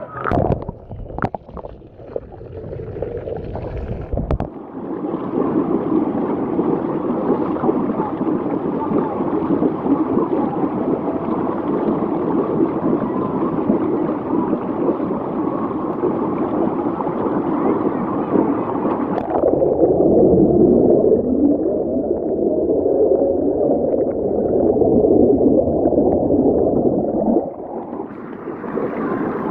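Water rushing and gurgling in a pool's lazy river, with a few sharp knocks in the first few seconds. About two-thirds in, the sound turns dull and muffled for several seconds, then opens up again near the end.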